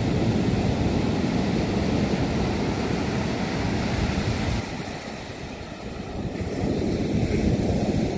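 Ocean surf breaking and washing up the beach, mixed with wind noise on the microphone; the noise eases for a couple of seconds a little past halfway, then returns.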